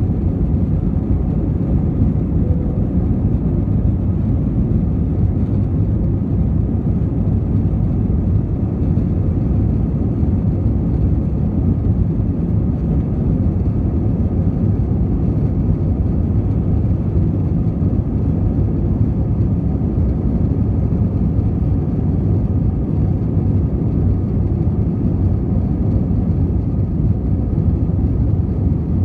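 Airbus A321-200 twin turbofan engines at full takeoff thrust, heard inside the cabin as a loud, steady, deep rumble during liftoff and initial climb.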